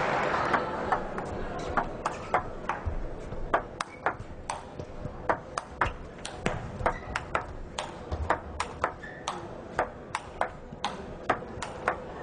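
A table tennis rally: the ball knocks sharply off the paddles and the table in a long exchange, about two to three clicks a second. Crowd applause fades out at the start.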